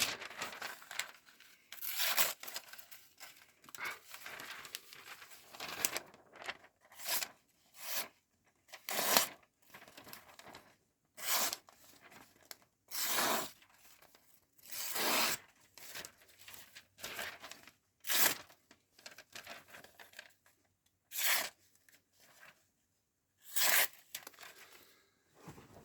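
An Imperial sod buster's flat-ground blade slicing through paper in about a dozen separate strokes, each a short rasping tear. The edge is only fairly sharp and, in the owner's words, could be tuned up.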